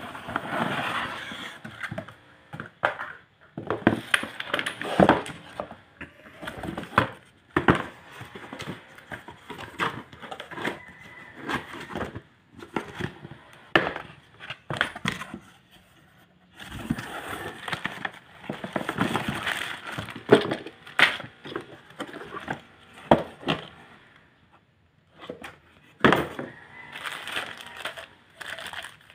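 Cardboard box and packaging being handled and opened: cardboard scraping and rustling, with plastic crinkling and sharp knocks and clicks, in irregular bursts with short pauses.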